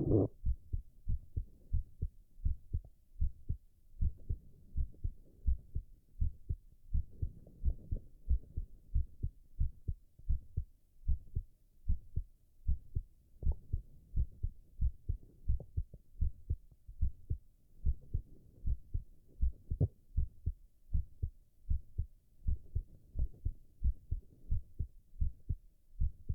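A man's heartbeat: steady double thumps, lub-dub, a little faster than one beat a second.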